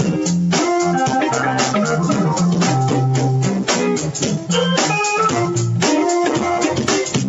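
Live jazz trio playing: keyboard, drum kit with cymbals, and electric guitar.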